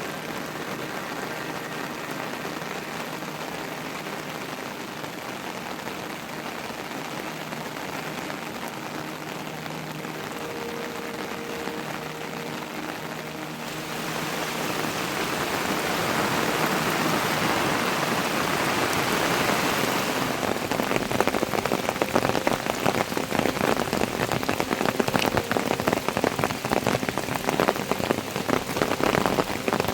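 Heavy monsoon rain falling steadily. About halfway through it grows louder, and in the last third dense close drops patter hard on a surface.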